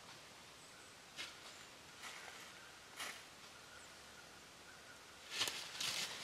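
White-tailed deer stepping in dry fallen leaves, a few separate rustles, then bounding off through the leaves about five seconds in with a louder run of crunching and rustling.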